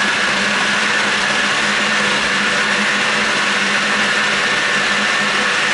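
Electric blender motor running steadily at one speed, blending tomato sauce, with a constant hum under a broad whirring noise.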